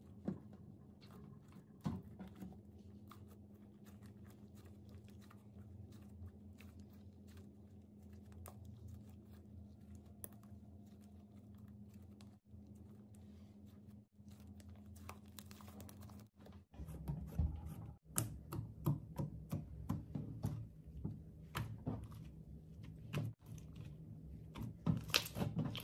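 Hands working clay slime, giving sticky clicks and small pops, sparse and faint at first over a low steady hum, then louder and rapid, irregular crackling from about two-thirds of the way through.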